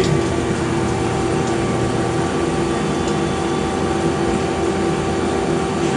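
Metal lathe running steadily with a constant hum through a parting-off cut in steel.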